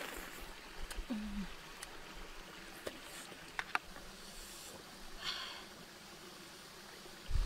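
Quiet eating sounds from cooked river crab: soft mouth sounds at the shell and a few sharp faint clicks of crab shell being picked apart, with a brief low hum about a second in.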